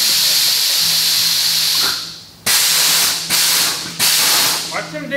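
Air suspension on a 1968 GMC C10 pickup letting air out of its bags as the front lowers: a steady hiss of escaping air cuts off about two seconds in, then comes back as a series of short hisses while the valves are tapped.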